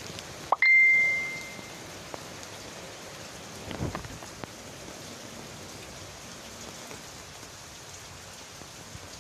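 Steady rain of a tropical storm falling on trees and roofs. About half a second in a single sharp ding rings out and fades over about a second.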